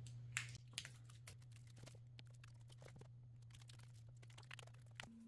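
Faint crackling and ticking of protective plastic film being peeled off a stainless steel drip rail molding, a few sharper clicks in the first second and near the end, over a steady low hum.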